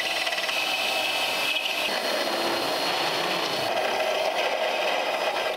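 Cordless drill spinning a carbide burr in the radiator mounting hole of a steel frame rail, grinding the hole out into a slot. A steady grinding whir with no let-up.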